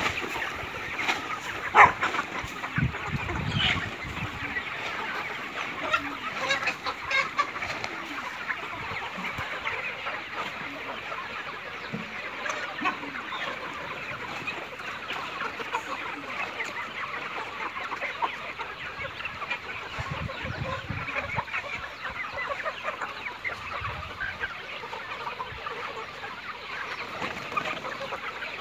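A large flock of chickens clucking all at once, a dense continuous chatter of overlapping calls. A single sharp, louder sound stands out about two seconds in.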